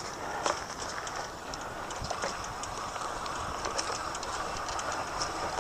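Electric mountain bike riding up a steep trail: a steady rolling rush of tyres and drivetrain with many small irregular ticks and clicks.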